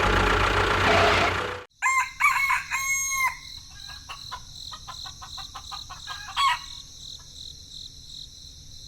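A machine engine running noisily stops abruptly less than two seconds in. Then a rooster-like crow and chicken clucks follow, with short scattered calls over steady high insect-like tones.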